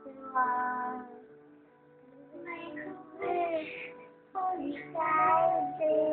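A little girl singing in short phrases over a backing music track.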